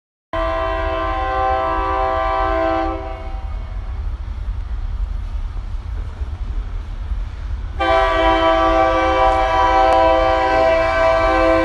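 Train horn blowing two long blasts, several notes sounding together: the first for about two and a half seconds, the second starting about eight seconds in and still held at the end. A steady low rumble runs underneath.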